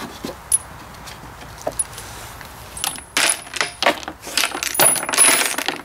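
Loose nuts and bolts rattling inside a John Deere 2032R's removed fuel tank as it is shaken to scrub out debris: a few scattered clinks, then dense rattling from about three seconds in.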